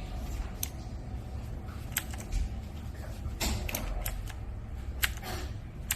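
Scattered sharp clicks and clacks, about eight at irregular intervals, over a low steady hum.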